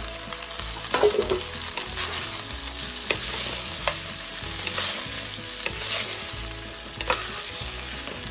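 Wooden spatula stirring cooked rice and vegetables in a hot nonstick wok: a steady sizzle with scraping and several sharp knocks of the spatula on the pan, the loudest about a second in.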